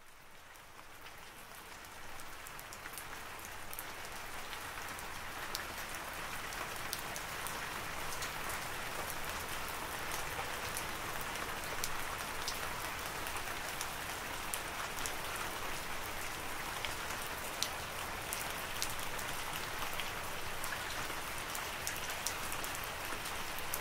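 Rain falling: a steady hiss of rain with many sharp, scattered drop ticks. It fades in over the first few seconds, then holds steady.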